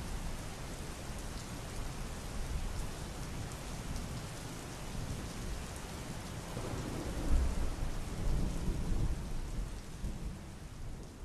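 Steady rain, with a low roll of thunder that builds about six and a half seconds in, peaks a second later and dies away.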